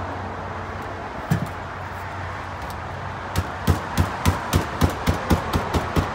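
A hammer striking expanded-metal gutter-guard mesh against a flat bench to flatten out a raised bend. There is one knock about a second in, then from about halfway a steady run of quick strikes, roughly four a second.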